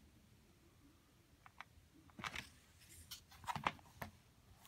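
Faint handling noise from a plastic Blu-ray case: soft clicks and rustles as it is closed and turned over in the hand, starting about a second and a half in.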